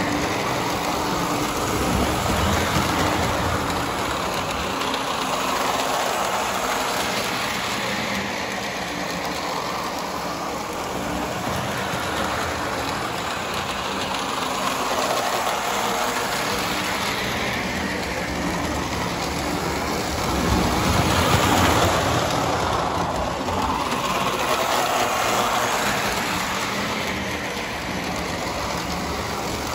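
Lionel O-gauge toy train with a Spirit of 76 diesel locomotive and caboose running around a loop of track: a steady rolling rumble of wheels on the rails with motor hum. It swells and fades as the train comes nearer and goes away.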